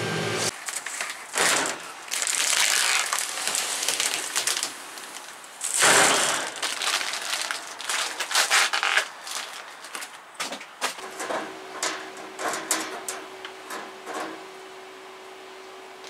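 Crinkling and rustling of plastic and stainless steel sheet being handled on a workshop bench, with knocks and scrapes. About eleven seconds in a steady low hum sets in under scattered light clicks.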